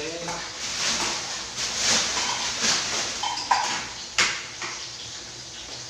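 Metal spatula scraping and stirring food around a pan in repeated strokes, with two sharp clinks of metal on the pan about three and a half and four seconds in.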